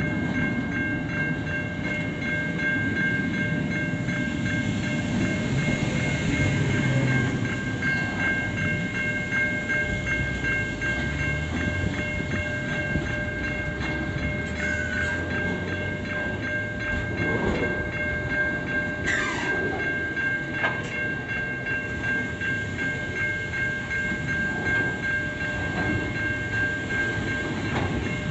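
Intermodal freight train's container and tank-container wagons rolling steadily past at close range, a continuous rumble of wheels on rail over a steady high-pitched ringing. A brief falling squeal comes about two-thirds of the way through.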